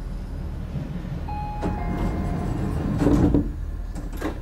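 Commuter train's door-closing chime, two falling notes, then the sliding doors shutting with a loud rush and thud about three seconds in, followed by two sharp clicks near the end, over the steady low hum of the standing train.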